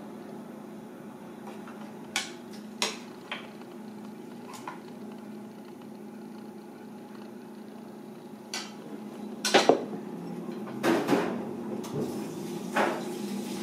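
Metal serving spoons clinking and scraping against a frying pan and a ceramic plate as food is dished up: several scattered sharp clinks, the loudest around ten seconds in, over a steady low hum.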